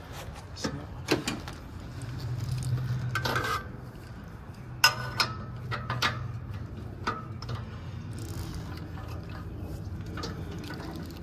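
Scattered metallic clinks and clanks of a socket wrench with a long extension knocking against engine-bay metal as it is fitted onto an oxygen sensor on the exhaust manifold. The sharpest clank comes about five seconds in, over a low steady hum.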